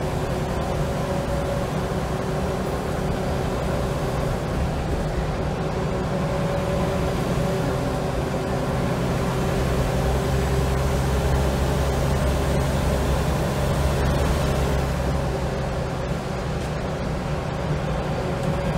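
Scania L94UB single-deck bus under way, heard from inside the saloon: a steady engine drone with a whine from the driveline, building a little in the middle and easing off towards the end.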